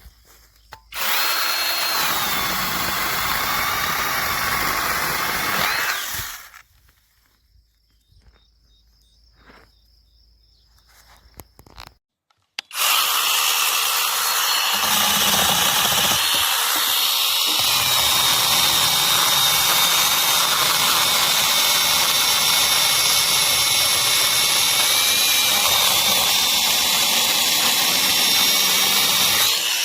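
Battery-powered 8-inch mini chainsaw's brushless electric motor running with a high whine in two runs: one of about five seconds, then after a quiet pause with a few light clicks a long run of about seventeen seconds, the chain cutting wood.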